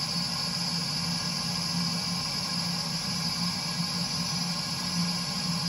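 Burnham Alpine condensing boiler's combustion blower running steadily at lightoff speed, a steady hum with a high hiss, as the Sage controller holds in its drive-lightoff stage before ignition.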